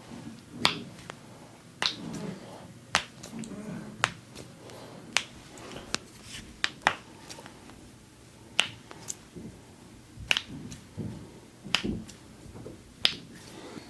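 Finger and knuckle joints cracking under a chiropractor's manual adjustment: a series of about a dozen sharp pops, roughly one a second, sometimes two close together, with soft handling sounds between them.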